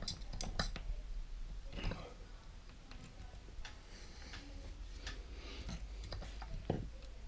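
Scattered light clicks and taps of a screwdriver and needle-nose pliers working on the terminal screws of a plastic ceiling rose, as a bypass wire is fitted into a terminal. A few clicks come close together at the start, another about two seconds in, and a sharper one near the end.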